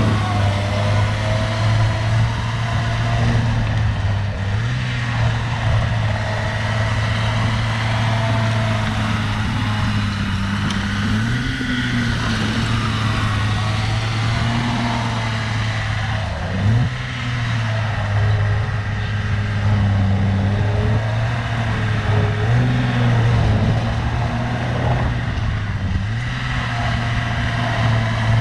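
Diesel engine of a tracked earthmoving machine working steadily, its pitch dipping briefly and recovering every few seconds as it takes load while pushing gravel.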